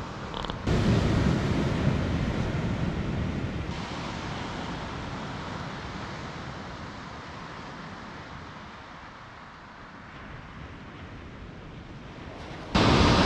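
Sea waves breaking and washing over a shingle beach, with wind on the microphone. The surf is loudest about a second in and fades slowly, then jumps back up loud near the end.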